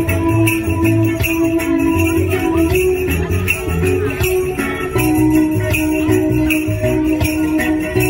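Steel pan melody struck with a stick while the other hand shakes a wooden rattle in a regular beat, over a steady pulsing bass line.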